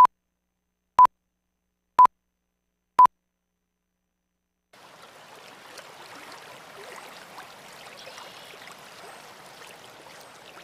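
Four short, high beeps one second apart from a film countdown leader, followed by a short silence. From about five seconds in, the soft, steady splashing of small waves on a mountain lake.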